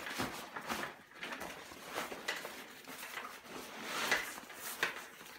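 Irregular rustling and scraping of nylon backpack fabric and a stuffed shelter being pushed down into the bottom of the pack, with a few sharper swishes.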